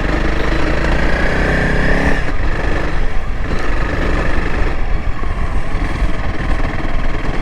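Honda CRF300L Rally's single-cylinder engine running under way, its pitch climbing slightly before easing off about two seconds in, then running on rougher and less steady.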